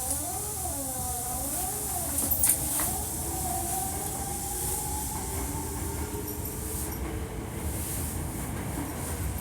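Hankyu 1300 series electric train running, its drive whine wavering up and down in pitch for the first few seconds, then settling into a steady, slowly rising tone over the low rumble of the running gear. A short clatter comes about two and a half seconds in. The car is one flagged as making an abnormal noise.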